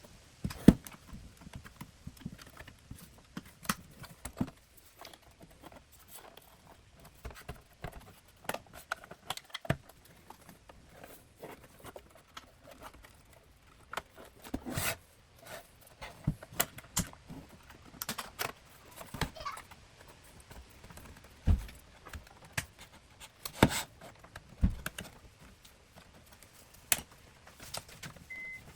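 Irregular clicks, taps and knocks of hand tools and plastic parts being handled while a car radio's front panel is worked loose and its screws are taken out.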